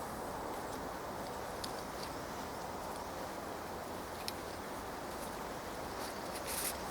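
Faint handling clicks and rustles of paracord being unwound from a survival-grenade bundle, with a short cluster of louder clicks near the end, over a steady outdoor background hiss.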